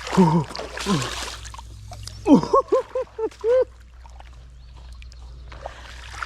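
A bass being dragged out of the creek onto the bank, with water splashing and sloshing. About two and a half seconds in, a man lets out a quick run of five or six high, excited whooping cries.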